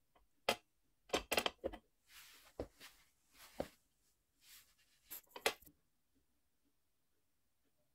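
Light clicks, clinks and knocks with short bursts of rustling, from a small rabbit hopping and scrabbling on a metal wire plant stand. The sounds fall off about six seconds in.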